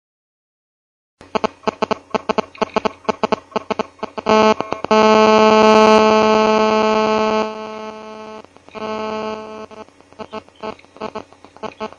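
Telephone signal interference effect. Rapid crackling clicks start about a second in. A harsh buzz swells loud about four seconds in, holds for about three seconds, then breaks back into stuttering crackle and buzzy bursts.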